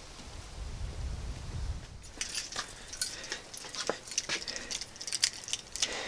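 A bunch of keys jangling and clinking in the hand: a quick, irregular run of small metallic clicks from about two seconds in, after a brief low rumble.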